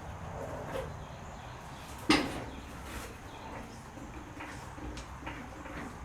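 A single sharp knock about two seconds in, among faint clicks and taps: hand work with tools and parts in a shop.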